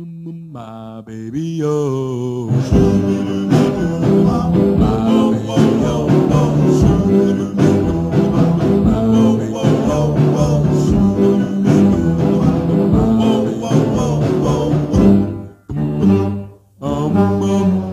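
Background music: a song starts softly and swells to full volume about two and a half seconds in, then drops out briefly twice near the end.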